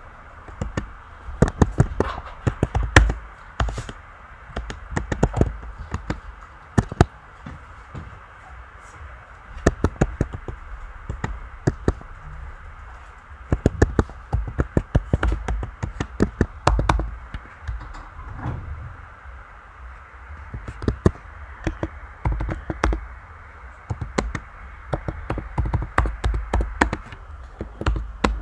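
Typing on a computer keyboard: runs of sharp key clicks, each with a dull thud, separated by pauses of a second or two as the message is typed out.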